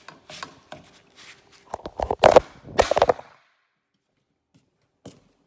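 Spatula and frying pan clattering: a run of knocks and scrapes as a quesadilla is flipped in the pan, loudest about two to three seconds in, then silence.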